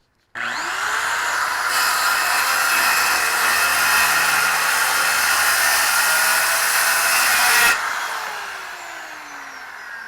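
Handheld electric cutting tool spinning up, cutting through the truck's flatbed sideboard for about six seconds, then released and winding down with a falling whine.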